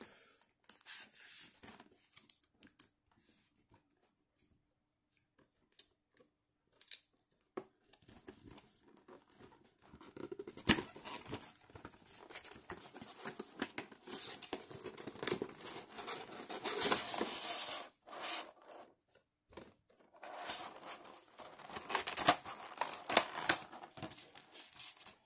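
A cardboard figure box being handled and opened, with a few scattered taps and scrapes at first. From about a third of the way in, a clear plastic blister tray is slid out and its plastic lid pulled off, giving long stretches of crinkling and crackling plastic with sharp clicks.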